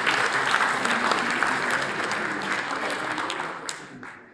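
Group applause, steady at first, then thinning out and dying away near the end.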